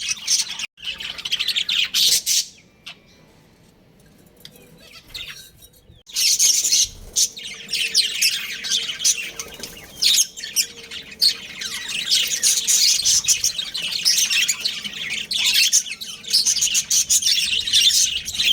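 Budgerigars chirping, a dense run of rapid high-pitched chirps. The chirping drops away for a few seconds about two seconds in, then starts up again.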